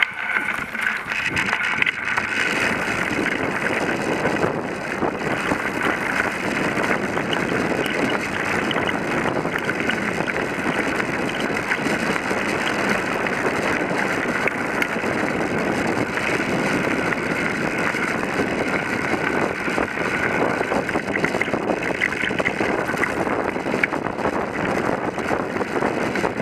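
Bicycle riding over a gravel path: a steady rolling noise of tyres on gravel, dotted with many small crunches and rattles, with wind buffeting the microphone.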